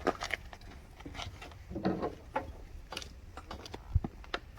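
Scattered clicks, knocks and a brief rustle from sawmill parts and packing being handled during unpacking, with one dull thump near the end as something heavy is set down.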